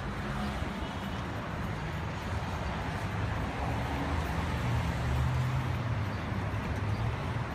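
Outdoor street noise with the low hum of a vehicle engine, swelling about halfway through.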